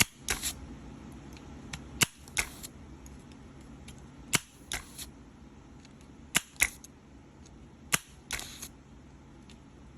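Spring-loaded desoldering pump (solder sucker) being worked on a circuit board. It gives five sharp snaps roughly every two seconds, each followed by a short hiss.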